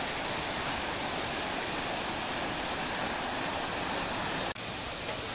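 Steady rushing roar of white-water rapids on a large river, dipping briefly about four and a half seconds in.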